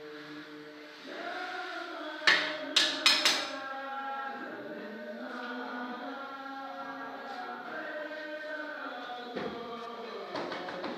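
Chanting voices holding long sung tones, with four sharp knocks a little over two seconds in.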